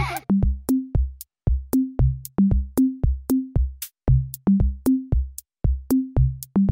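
Background music: a sparse, bouncy electronic drum-machine beat of low kick drums, short pitched blips and sharp clicks, with brief gaps between phrases.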